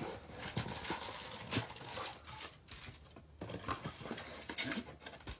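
Hands rummaging in a cardboard box and pulling out wrapped trading-card packs: irregular rustling and crinkling of the pack wrappers and cardboard, with scattered small taps and clicks.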